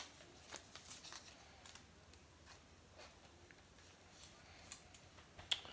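Faint handling sounds of a trading card being slid into a soft plastic penny sleeve: light plastic rustles and small scattered ticks, with one sharper click about five and a half seconds in.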